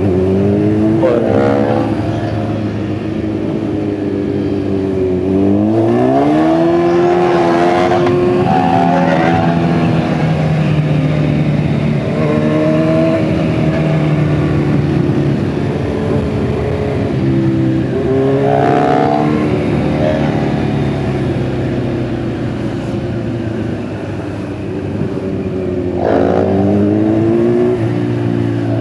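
Kawasaki Z900 inline-four motorcycle engine under way, pulling hard several times with the pitch rising each time, then easing back to a steadier cruise between pulls.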